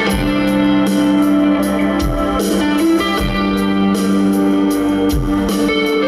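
Rock band playing live, an instrumental stretch without singing: held guitar chords with a steady deep beat about once a second.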